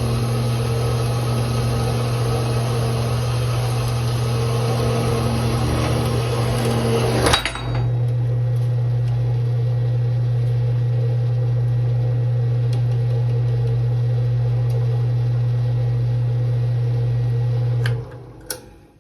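Bandsaw running: the motor hums steadily under a broad cutting hiss that ends with a sharp clank about seven seconds in. The motor then hums on alone until it shuts off near the end, followed by a couple of faint clicks.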